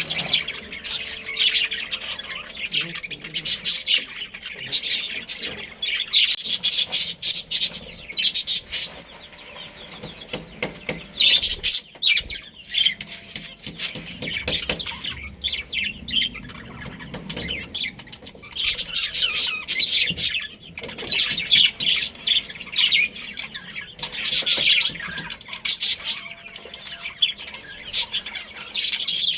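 A colony of budgerigars chirping and chattering, many rapid high twitters overlapping, swelling louder in stretches several times.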